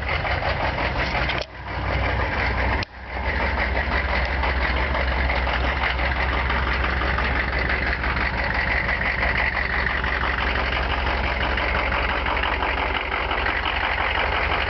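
Chevrolet 6.5 L diesel V8 idling steadily, still cold from a start at −22 °C without the block heater plugged in. The sound drops out briefly twice, about one and a half and three seconds in.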